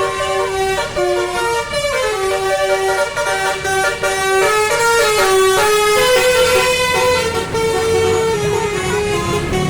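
Basuri 'telolet' musical bus horn playing a multi-note tune. Its horn notes step up and down every fraction of a second.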